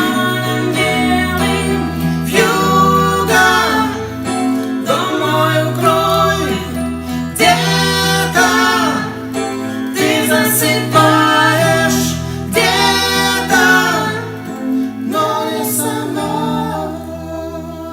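Singing over keyboard accompaniment in a slow ballad: sung phrases over sustained chords, easing off near the end.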